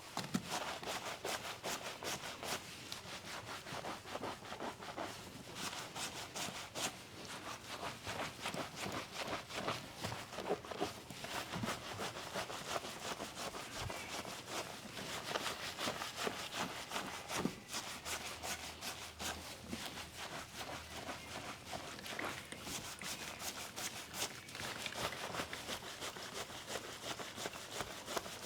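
Hands rubbing during a massage: a dense, steady run of quick scratchy rubbing strokes.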